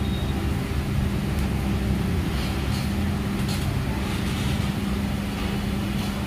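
Steady low rumble with a constant hum, and a few faint ticks around the middle.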